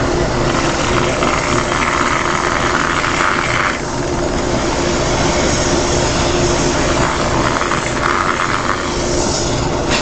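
Power sanding a turned Ashe juniper vase on a running lathe: a drill-driven sanding disc whirs and hisses against the spinning wood over the steady hum of the machines. The grinding hiss swells while the disc bears on the wood, from about half a second in to nearly four seconds and again near the end.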